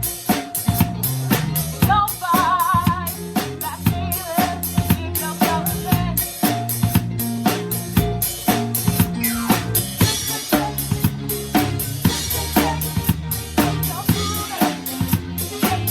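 Band playing a seventies pop-rock song, with a drum kit (kick, snare and cymbals) prominent and keeping a steady beat over bass and other instruments.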